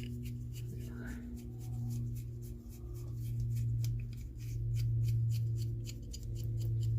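Small light metal clicks and handling sounds of an adjustable wrench being worked in the hand, over a steady low electrical hum that swells and fades.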